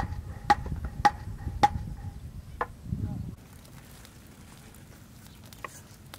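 Knife chopping on a cutting board, sharp strikes about two a second, each with a brief metallic ring from the blade. The chopping stops about three seconds in and only faint ticks follow.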